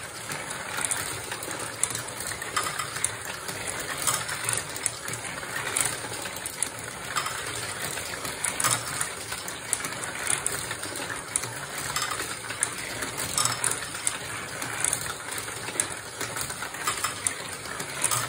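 Steel marbles rolling and clicking in a steady stream through a plastic GraviTrax marble run, a continuous rattle dotted with frequent small knocks.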